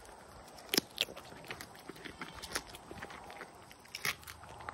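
Goat biting off and chewing pieces of a fresh cucumber held out by hand: a run of wet crunches and snaps, the two sharpest close together about a second in and another near the end.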